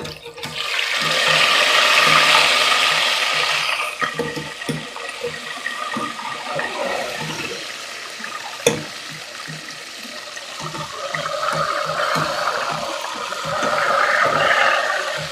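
Chicken lollipops frying in hot oil: a hissing sizzle that swells about a second in and again near the end, with a single sharp pop in the middle.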